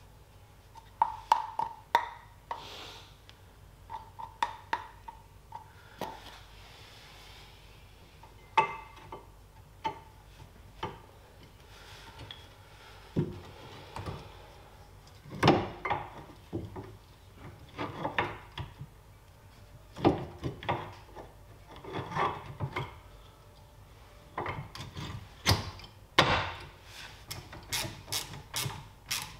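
Brake pads and rear brake caliper being handled and fitted by hand: scattered metal clinks, knocks and scrapes, some with a brief ringing, then a fast run of clicks near the end.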